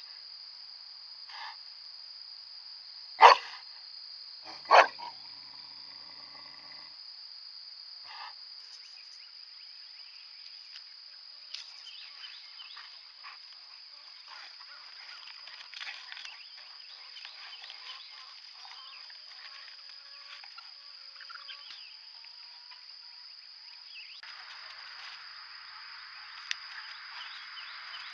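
Great Pyrenees livestock guardian dog barking: two loud barks about three and five seconds in, with a few fainter barks around them, over a steady high-pitched hum.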